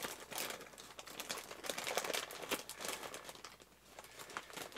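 Clear plastic zip-top bags crinkling and rustling as hands rummage through them, in irregular crackly bursts.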